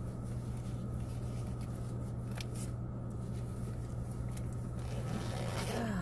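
Steady low hum of a car's engine and tyres heard from inside the cabin while driving, with a couple of faint clicks.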